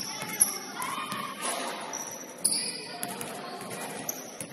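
Basketball bouncing on a hardwood gym floor, with sneakers squeaking and a few distant voices.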